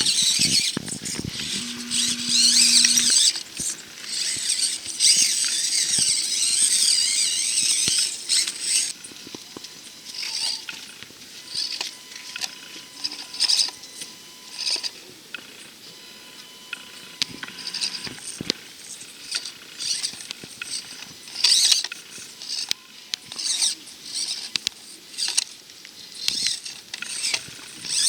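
Axial SCX24 micro RC crawler's small electric motor and gearbox whining high-pitched as it creeps over rock. It runs steadily for about the first three seconds, then comes in short stop-start bursts with small clicks and scrabbles.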